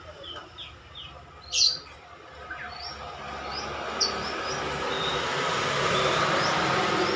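Caged Javan myna giving short chirps and whistles, with a loud sharp call about a second and a half in and another about four seconds in. In the second half a rushing noise swells steadily behind it.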